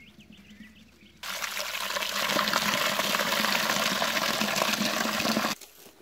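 Water being poured out of a bucket in a steady rushing gush for about four seconds, starting and stopping abruptly.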